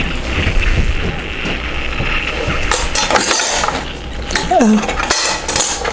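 Metal baking pan clinking and scraping as it is handled with oven mitts and set down on the countertop, with scattered clicks over a steady hum that fades about halfway through.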